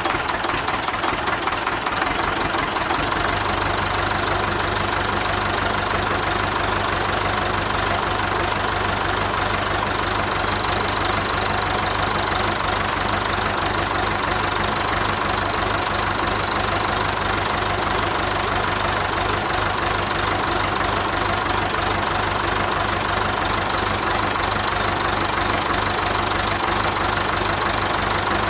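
Perkins four-cylinder diesel engine of a Massey Ferguson 590 tractor, freshly overhauled, running steadily at idle. About three seconds in, a steady low hum settles in under the engine note.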